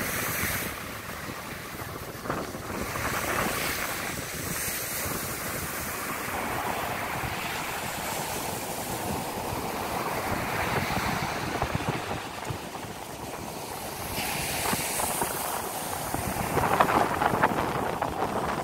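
Wind buffeting the microphone over waves washing onto a sandy shore, a steady rush that swells and eases in gusts and grows louder and rougher near the end.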